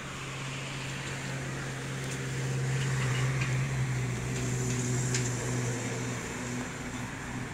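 Steady low hum of a motor vehicle engine with street noise, swelling a few seconds in and easing off toward the end.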